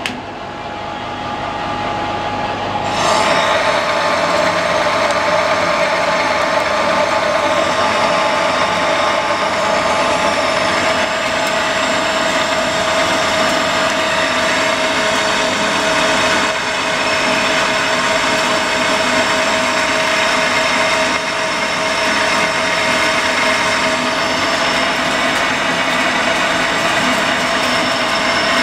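Metal lathe spinning a 4140 steel hollow-bar sleeve at 440 RPM while a boring bar takes a 1.5 mm cut inside the bore. The cut bites about three seconds in, and from then on it is a steady, loud cutting noise with a constant tone running through it.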